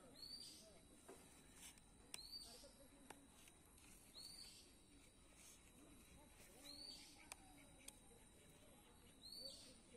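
Near silence outdoors, with a bird's short high chirps repeating about every second or two and a few faint clicks.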